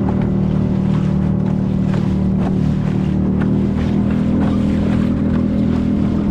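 A motorboat's engine running at a steady speed, a constant low drone with an even hum near its base pitch.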